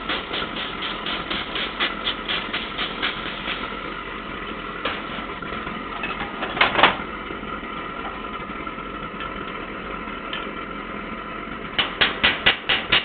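A hand spray bottle squirted over and over, about four squirts a second, cooling freshly poured babbitt in an engine bearing shell on its mandrel, over a steady hum. There is one louder metal clank about halfway through. Near the end come quick light hammer taps on the bearing, about five a second, as it is knocked loose from the mandrel.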